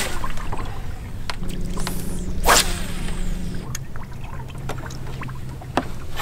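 Water splashing beside a fishing boat as a hooked smallmouth bass is fought, with scattered clicks, over the steady low hum of a boat motor. One louder splash comes about two and a half seconds in.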